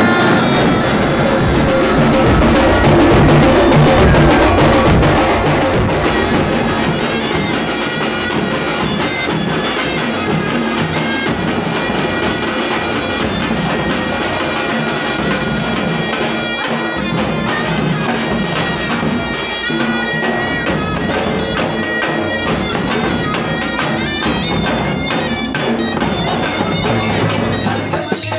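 Traditional Indian festival music: a wind instrument plays a melody over drums and percussion.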